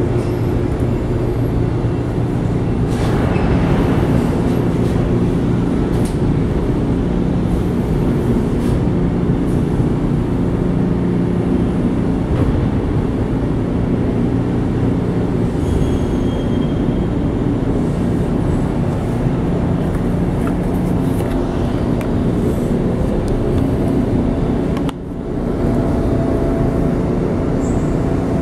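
Steady mechanical drone of a container gantry crane's machinery running during a heavy lift, with several steady low hums in it; it drops out briefly and comes back near the end.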